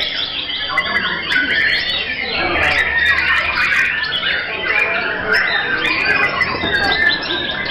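Many caged white-rumped shamas singing at once: a dense, overlapping tangle of whistled phrases, trills and sliding notes.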